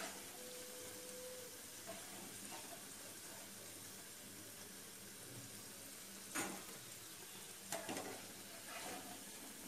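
Masoor dal pakoras sizzling softly in shallow oil in a frying pan, with a few short knocks and scrapes of a slotted spatula in the pan as the fritters are lifted out, the loudest two past the middle, about a second apart.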